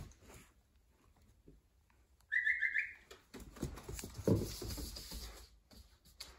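A brief high, stepped whistle-like call about two seconds in. Then a Deutsch Drahthaar puppy's paws scamper and thump on a hardwood floor as it runs and retrieves a rope toy.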